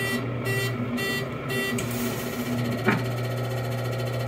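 Pressed-penny souvenir machine at work: a steady electric motor hum under beeps about twice a second that stop about a second and a half in, then a single sharp clack about three seconds in.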